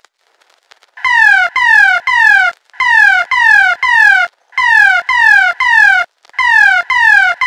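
Emergency broadcast alert attention tone for an Amber Alert: sets of three short falling tones, repeated four times at even spacing, starting about a second in.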